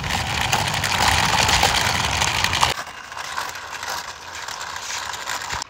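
Small plastic wheels of a toy auto rickshaw rolling by hand along a rough concrete wall top, making a dense gritty rattle. It is louder for about the first two and a half seconds, then softer.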